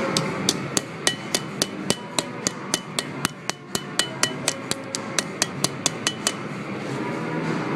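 Blacksmith's hammer striking hot iron on an anvil in a quick, even rhythm of about four blows a second, each with a short metallic ring. The blows stop a little past six seconds in, leaving a steady low background rumble.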